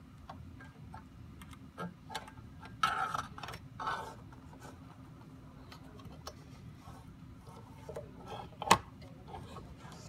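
Small plastic clicks and rubbing as a Lenovo power adapter and its cable are handled and pushed into a plastic power cage, with a busier patch of rustling a few seconds in and one sharp click late on.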